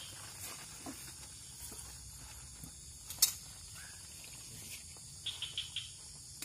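Scattered clicks and knocks of hand work with wooden blocks and a hydraulic bottle jack on gravel. One sharp click about three seconds in is the loudest, and a quick run of small ticks comes near the end.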